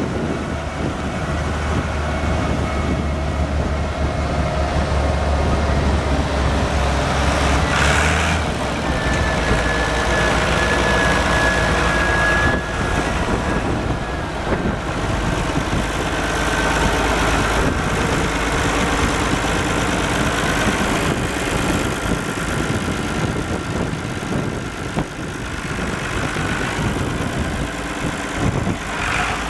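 Six-cylinder diesel engine of a 1979 Massey Ferguson 2675 tractor running steadily as the tractor is driven about. Its low note changes about eight seconds in, and a high whine joins for a few seconds soon after.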